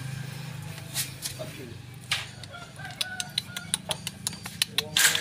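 Steel tether chain clinking and scraping on concrete as a small monkey walks, the sharp clinks coming several a second in the second half, over a low steady hum.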